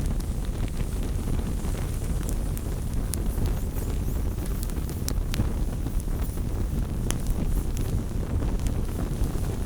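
Small wood fire burning: a steady low rushing roar with scattered sharp crackles and pops throughout.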